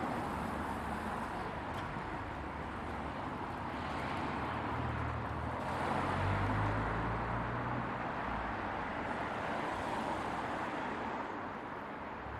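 Steady outdoor town background noise: a low rumble under an even hiss, growing a little louder in the middle.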